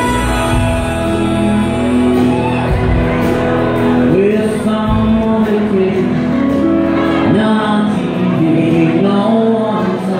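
Live rock band playing an electric guitar song, with deep thumps under it in the first half. A man's voice starts singing about two seconds in.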